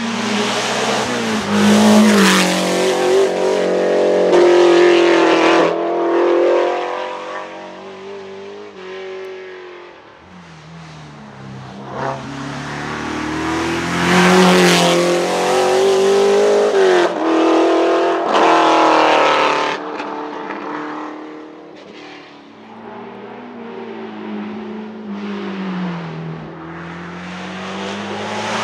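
1972 De Tomaso Pantera Group 4 race car's Ford 351 Cleveland V8 at full throttle, revving up through gear changes, very loud. It swells to a peak twice and drops away between, then starts building again near the end.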